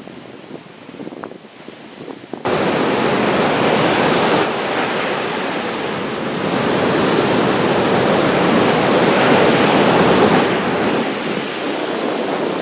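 Ocean surf with wind buffeting the microphone, a steady rushing noise that jumps abruptly much louder about two and a half seconds in.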